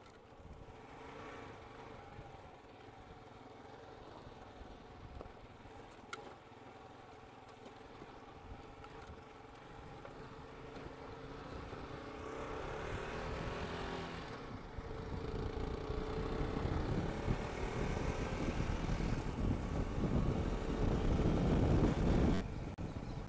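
Motorcycle engine running as the bike rides a dirt road, its pitch rising as it picks up speed in the second half, with road and wind rumble growing louder. The sound drops back suddenly near the end.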